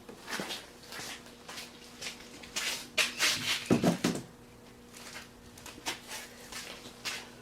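Boler trailer door being handled after it is lifted off its hinges: scattered knocks and rustles, with the loudest knocks about three seconds in.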